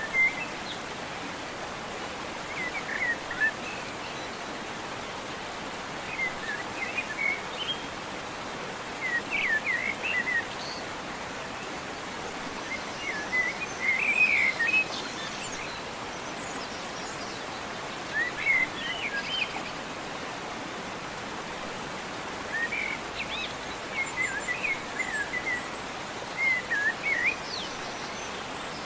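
Small bird chirping in short quick clusters of rising and falling notes every few seconds, over a steady outdoor hiss.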